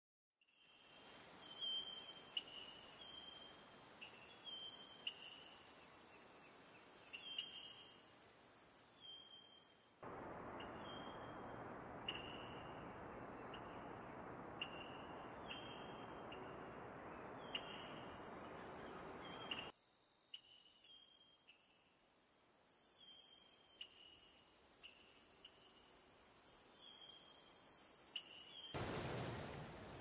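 Forest ambience: a steady high insect chorus with short chirps about once a second. A rushing noise cuts in about a third of the way through and cuts off abruptly about two-thirds through, and near the end the rush of a small waterfall comes in.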